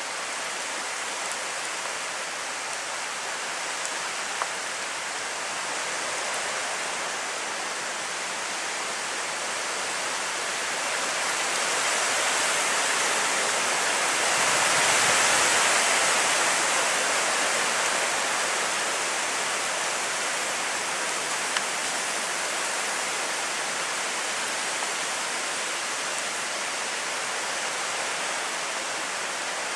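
Steady heavy rain from a hurricane, a continuous hiss of falling water that swells louder for a few seconds in the middle.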